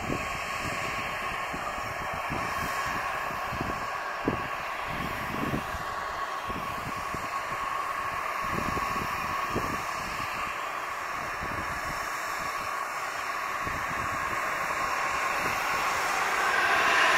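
Pilatus PC-24 business jet on final approach, its two Williams FJ44-4A turbofans giving a steady distant whine that grows louder over the last few seconds as the jet nears. Irregular low rumbles run underneath.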